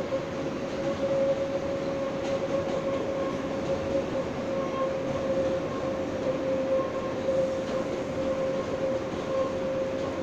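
R143 subway car running at a steady speed, heard from inside the car: continuous rumbling wheel and track noise under a steady hum that holds one pitch, with a few faint clicks.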